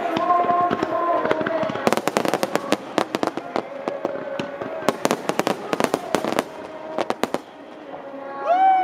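Aerial fireworks bursting in a rapid run of sharp cracks for several seconds, over music with singing. The cracking thins out after about seven seconds.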